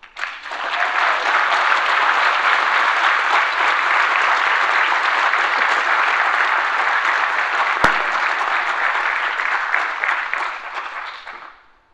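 Audience applauding, rising within the first second, holding steady, then dying away over the last second or so. A single sharp click sounds about eight seconds in.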